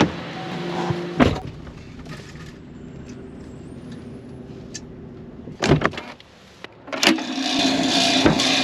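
Vehicle engine running steadily, with a few sharp thumps: one about a second in and two more between about six and seven seconds. The engine fades down in the middle and is back louder after the last thump.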